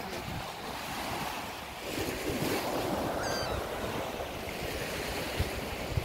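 Small sea waves breaking and washing up a sandy beach, the surf swelling about two seconds in, with wind buffeting the microphone.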